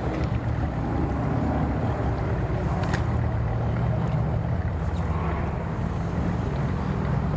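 Engines running steadily: a low, even hum under a rushing wash of noise, with a faint click about three seconds in.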